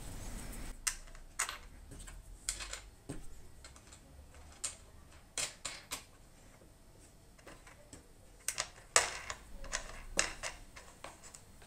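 Scattered light clicks and taps of small metal hardware: washers and wing nuts being set on and threaded onto the bolts of a plywood drum sander's top cover. A denser cluster of taps comes about nine seconds in.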